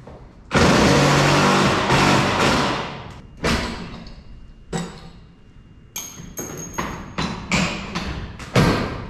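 A power driver running a wood screw in for about two and a half seconds, the garage door track fastened to the wall. Then a series of sharp knocks and clicks, several with a high metallic ring, as the steel track and its nails are knocked about.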